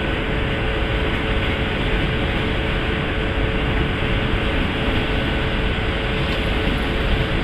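Steady rumble and hiss of railway-yard background noise with a constant hum running through it, unchanging throughout.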